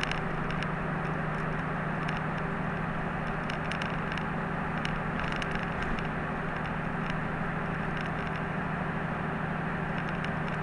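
Inside a route bus on the move: a steady low engine hum and road noise, with faint light rattles from the cabin.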